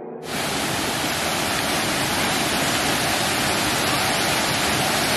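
Steady rush of a waterfall's falling water, cutting in abruptly just after the start as the background music stops.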